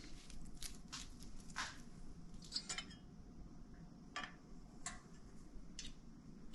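Light metallic clicks and clinks of small metal tools and parts being handled while measuring an engine's piston deck height, spaced roughly a second apart.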